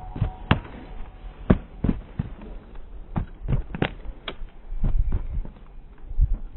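Horse's hooves clopping at an irregular walk: sharp knocks, a few a second, over low thumps.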